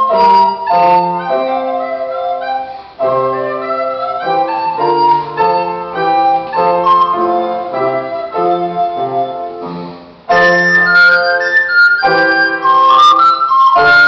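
A recorder playing a melody with piano accompaniment, with short breaks between phrases about three and ten seconds in.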